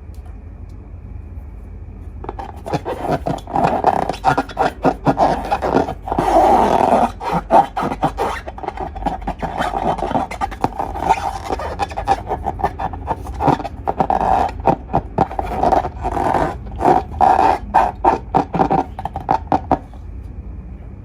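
Slime being squished and worked by hand, with a dense run of sticky clicks and pops that starts about two seconds in and stops near the end.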